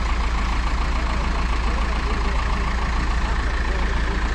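Heavy engine idling steadily, with no revving or change in pace.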